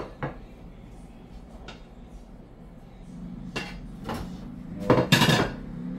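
Kitchenware clattering as food is served: a ceramic plate set down on the counter with a clack, then a metal spoon knocking against the pot and plates, with a cluster of loud clanks about five seconds in.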